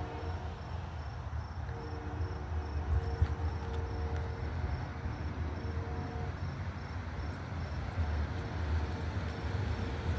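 Distant train horn sounding in several long blasts of a multi-tone chord over a steady low rumble, while an insect chirps in a fast, even pulse.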